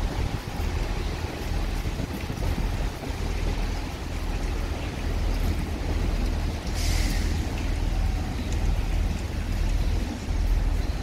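Wind buffeting the microphone over the low rumble of a South Western Railway electric train moving through the station, with a short hiss about seven seconds in.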